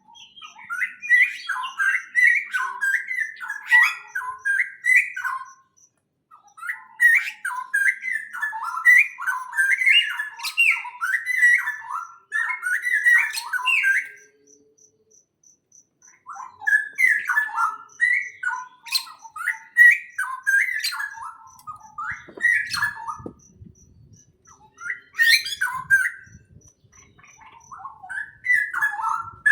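Small birds chirping in long bouts of rapid, repeated notes, broken by short pauses of a second or two. A few faint low knocks come about two-thirds of the way through.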